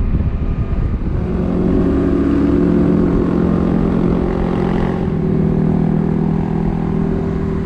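Motorcycle engine running at a steady cruising speed on the open road, over a low rumble of wind and road noise. Its pitch drops a little about five seconds in as engine speed eases.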